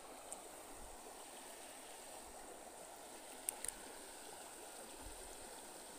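Faint, steady murmur of a shallow river flowing, with two light clicks about three and a half seconds in.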